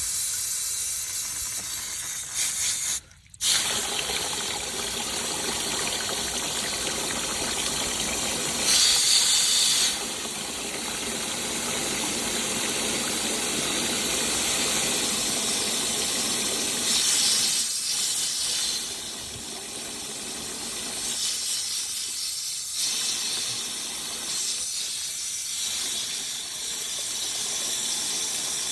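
Water hissing steadily through a rebuilt Ritchie automatic waterer's float valve as the bowl refills, the float screw loosened to let more water in. It cuts out briefly about three seconds in and grows louder for a moment around nine and seventeen seconds.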